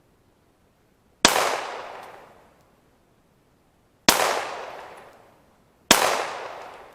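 Three 9mm pistol shots from a Glock 19, the first about a second in and the last two under two seconds apart, each sharp crack trailing off in a long echo.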